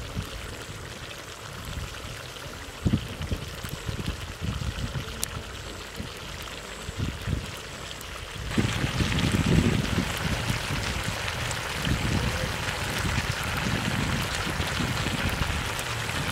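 A pan of broth bubbling and sizzling over an open wood fire, with irregular low rumbles underneath. The bubbling hiss grows clearly louder about halfway through.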